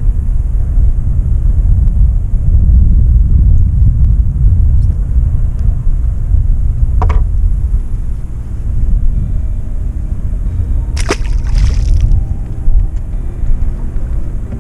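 Wind buffeting the camera microphone as a steady low rumble, with a short tap about seven seconds in and a brief clatter around eleven seconds.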